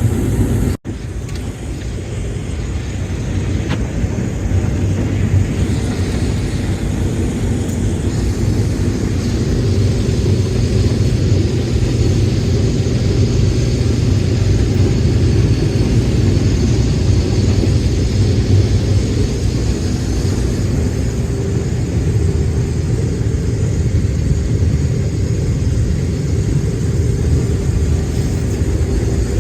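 Case IH 2188 combine running steadily under load while harvesting corn: a continuous low drone of engine and threshing machinery. The sound cuts out abruptly for an instant about a second in.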